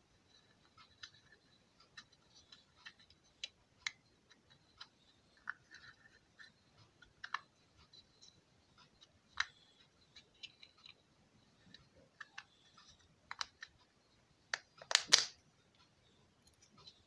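Irregular light clicks and taps, as of small parts being handled, with a louder cluster of clatter about fifteen seconds in.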